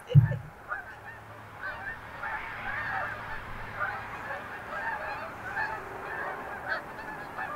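A flock of geese honking, with many overlapping calls throughout. A single low thump comes right at the start, and a faint steady low hum runs underneath.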